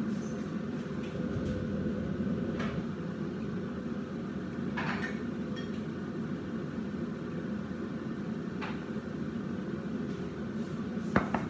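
A steady machine hum from a kitchen appliance, with four short knocks and clinks of kitchen utensils or containers spread through.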